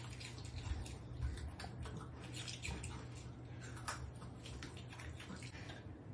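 Small terrier biting and chewing a red bell pepper: faint, irregular wet crunching and clicking from its mouth, over a steady low hum.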